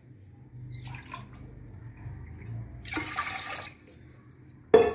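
Water poured from a glass into a pressure cooker onto washed toor dal, splashing steadily, with a brighter splash about three seconds in. A single sharp knock comes near the end.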